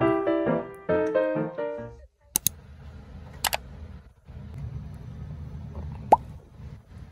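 Piano music with a light melody for about the first two seconds, cutting off abruptly. After that comes quiet handling noise in a room, with two sharp clicks and a brief high squeak near the end.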